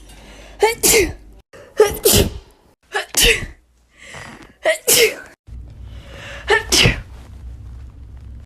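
A woman's sneezes, five in the run, each a short 'ah' intake leading straight into a sharp, loud sneeze.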